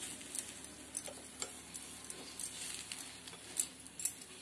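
Steel spoon spreading ghee over a paratha in a flat pan, making light irregular clicks and scrapes against the pan and the bread.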